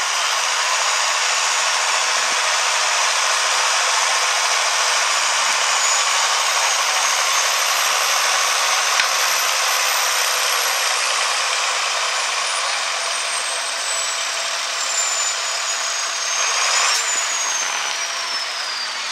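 Turbocharged Farmall diesel tractor engine running hard at full load while pulling a weight-transfer sled. A thin high whine falls slowly in pitch through the second half, and the sound eases slightly near the end.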